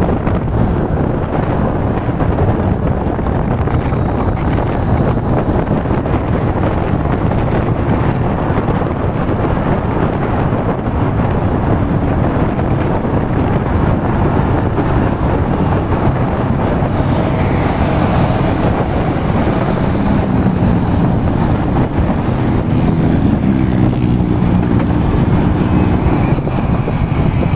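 Keeway K-Light 202 V-twin motorcycle engine running on the move, under heavy wind rush on the microphone. In the last several seconds the engine note rises and falls with the throttle.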